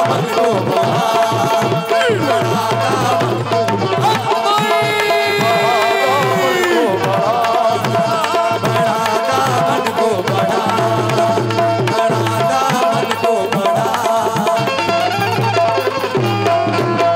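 Qawwali music: tabla drumming a rhythm under steady held melody tones, with one long held note that bends down and stops about seven seconds in.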